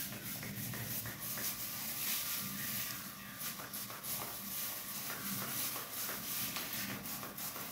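Trigger spray bottle spritzing liquid into hair in a series of short hissing sprays, mixed with the rustle of plastic gloves working through the hair.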